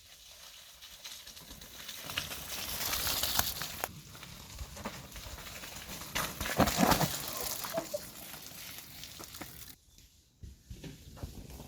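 Hissing and scraping of a ride over snow, edges sliding across the surface. It swells about two seconds in, is loudest in a rough scrape a little past the middle, and drops away sharply near the end.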